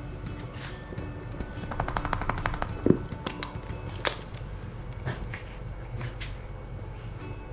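Background music, with a quick rattle of about a dozen clicks lasting about a second, around two seconds in, and a few scattered knocks.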